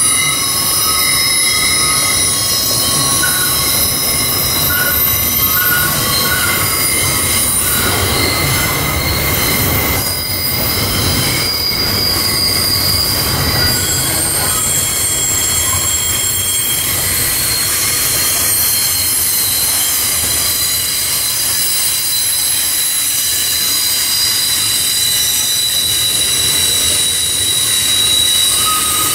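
Freight train wagons rolling past on a tight curve, their wheels squealing in several high, steady whistling tones that shift over time, over a low rumble of the wagons.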